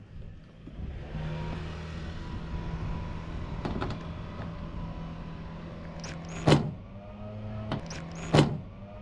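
A DeWalt cordless driver runs a bolt into a riv nut with a steady motor whir. Two loud, sharp clacks come about six and a half and eight and a half seconds in, and the whir continues at a slightly different pitch after them.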